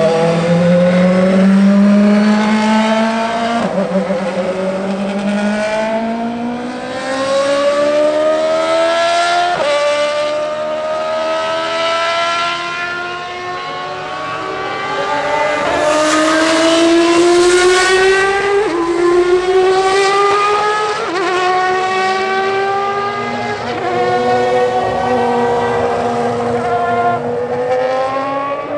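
Ferrari Formula 1 car's engine revving hard as it accelerates through the gears: a high, rising scream that drops sharply at each upshift and climbs again, over and over.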